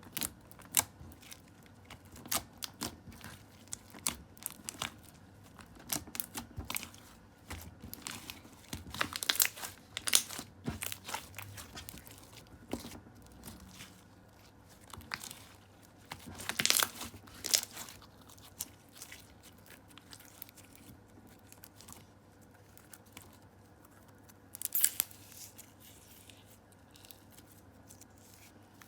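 Hands working clear slime, giving irregular sticky crackles, clicks and small pops, with three louder bursts of crackling: about 9, 17 and 25 seconds in.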